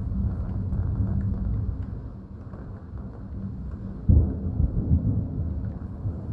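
Thunder rumbling low, then a sudden louder thunderclap about four seconds in that rolls on and fades over a couple of seconds.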